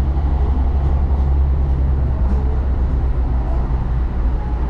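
Baltimore Light Rail car running along the track, heard from inside the car: a steady low rumble.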